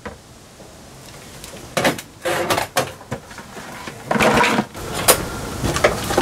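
Irregular handling noises: a string of short knocks, scrapes and rustles, with a plastic five-gallon bucket being lifted and shifted a little past the middle, and a sharp click about five seconds in.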